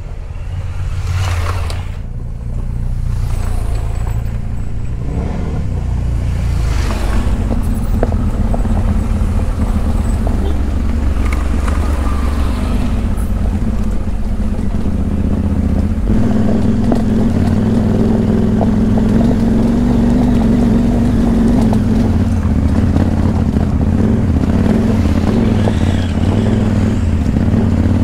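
Adventure motorcycle engine running while riding, with wind noise; the engine note varies in the first several seconds, then holds steady.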